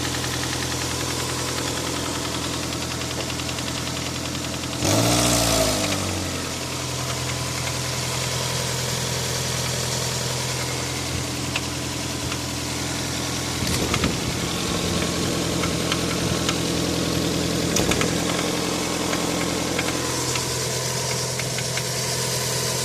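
Toyota 7A-FE 1.8-litre inline-four engine idling with a knock that the owner calls an extraneous noise of unknown cause. The revs rise and fall briefly about five seconds in, and a few sharper knocks stand out later.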